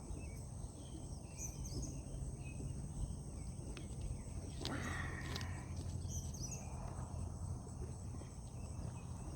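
Early-morning lakeside ambience: crickets and other insects keep up a steady high drone over a steady low hum, with a few brief high chirps.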